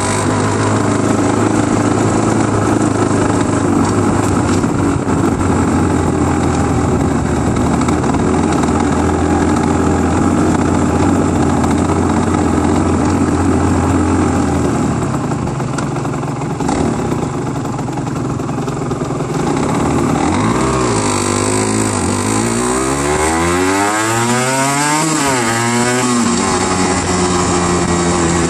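Aprilia RS125 two-stroke single-cylinder motorcycle engine running steadily at low speed, then about twenty seconds in revving up and pulling away, rising in pitch through a couple of sweeps before settling into a steady cruise near the end.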